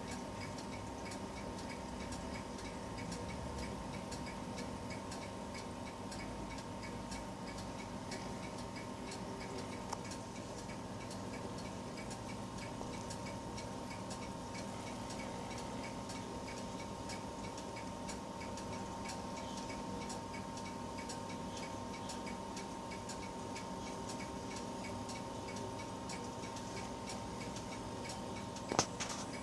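Small stepper motors from DVD-ROM drives moving a homemade mini CNC: a rapid, regular ticking of steps over a steady whine. There is a sharper click near the end.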